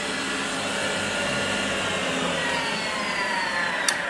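Electric combination wood planer's cutter-head motor running steadily without load, driven through a variable-frequency inverter. Its whine slowly falls in pitch in the second half as the motor slows, and a single sharp click comes near the end.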